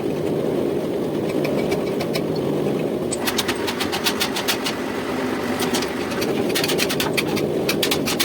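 Metal lathe running with a steady motor hum. From about three seconds in come rapid, irregular sharp metallic clicks and ticks.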